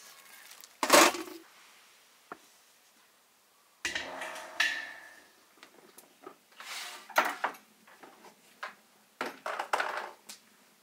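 A loud metallic clatter about a second in as a foil-covered baking tray is set down into a clay tandoor, followed by scattered knocks and clinks of bowls and dishes being handled.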